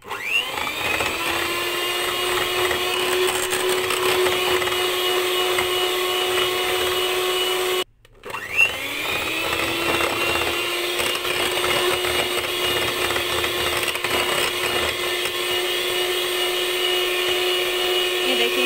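Electric hand mixer running, its beaters whipping cocoa powder into whipped cream and condensed milk: the motor spins up with a rising whine, runs at a steady hum, cuts out for a moment about eight seconds in, then spins up again and keeps running.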